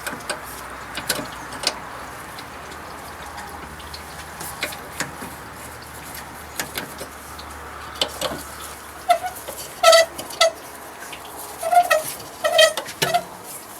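Scattered light clicks and knocks over a steady low hum, then from about nine seconds in a run of short, pitched clucking calls from hens.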